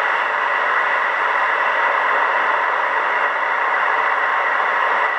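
Steady hiss of static from a Kenwood R-2000 communications receiver's loudspeaker, with no readable station coming through.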